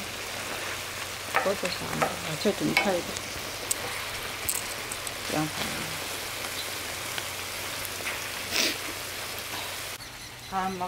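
Chicken and vegetables sizzling in sauce on a large round griddle, stirred and tossed with wooden spatulas that scrape and knock against the pan.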